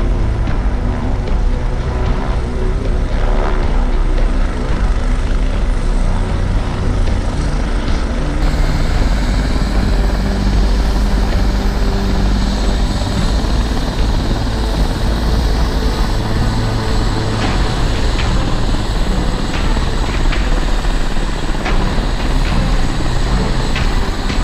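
UH-72 Lakota helicopter running on the ground: a steady mix of turbine and rotor noise, strongest in the low range. A few light clicks come near the end.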